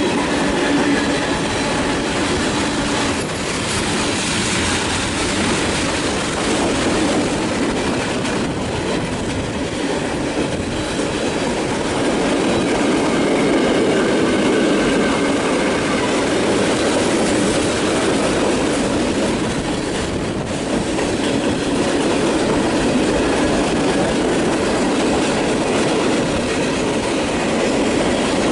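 A train passing close by, its cars rolling past with steady wheel-on-rail noise.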